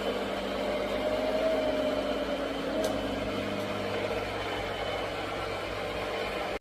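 Clien T24 robot vacuum cleaner running, a steady whirring hum of its motor.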